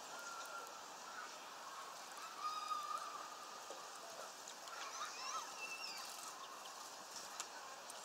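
Faint songbird calls: a few short wavering whistled notes, then some higher chirps about five seconds in, over a steady background hiss with a few light clicks.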